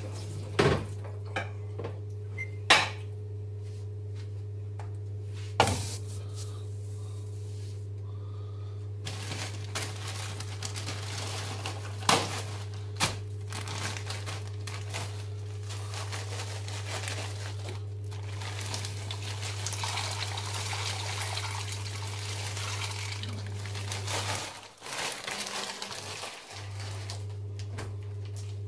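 A stainless steel saucepan being handled on an electric hob: several sharp clanks and knocks in the first half, then a long stretch of splashing, water-like noise. A steady low hum runs under it all.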